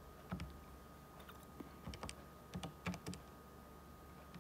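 Faint key presses on a handheld calculator, about eight to ten quick taps at an uneven pace, as an inverse-tangent calculation is keyed in.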